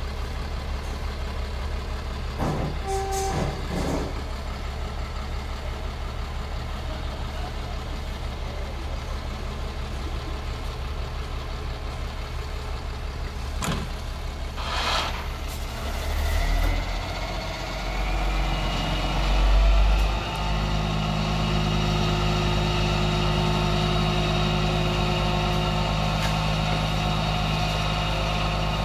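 Ford Cargo dump truck's diesel engine idling, then speeding up a little past halfway and holding a steady higher speed while the hydraulic hoist raises the loaded tipper bed. A short hiss comes just before the engine speeds up, and a thin high whine runs alongside the raised engine speed.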